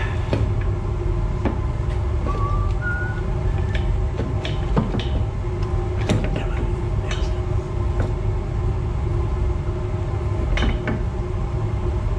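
Scattered metal clinks and knocks of hand tools and parts during work under a car's steering rack, over a steady low hum.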